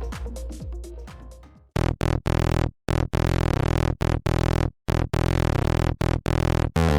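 Background electronic music: one track fades out, then a synthesizer track with a chopped, stuttering beat starts about two seconds in.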